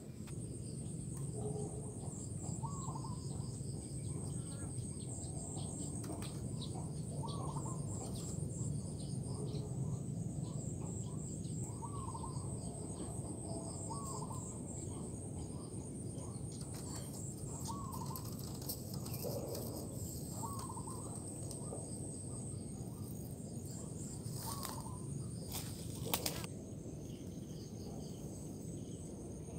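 Spotted doves giving short, repeated guttural coos every couple of seconds over a steady high-pitched insect trill, with two sharp clicks near the end.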